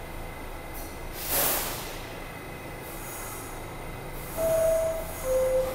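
R68A subway car at a station: a short, loud burst of air hiss, then the door-closing chime near the end, two steady tones, high then lower, which signals that the doors are about to close.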